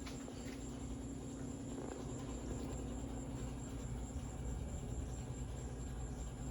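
Harbor Breeze Lakeside II ceiling fan running, its motor giving a steady hum with a faint, steady high whine above it. A bad capacitor leaves the fan spinning slowly.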